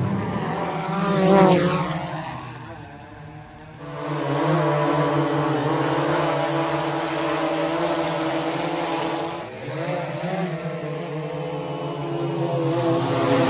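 Quadcopter drone's propellers buzzing in several layered tones that waver slightly in pitch. The sound swells loudly about a second in with a sweeping pitch, as in a close pass, drops away briefly, then settles into a steady hovering hum.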